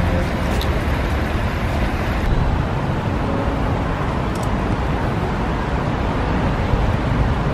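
Steady outdoor city noise: a low, continuous rumble of distant road traffic.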